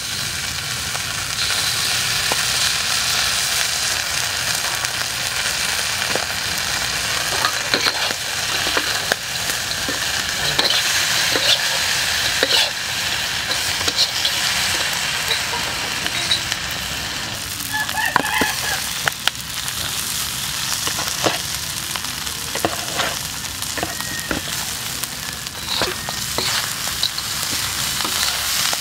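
Frog meat stir-frying in hot oil in a wok, sizzling steadily. A metal spatula scrapes and clinks against the wok again and again as it is stirred.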